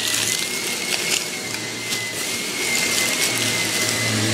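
Vacuum cleaner running steadily with a high motor whine and a low hum. A few short clicks sound over it.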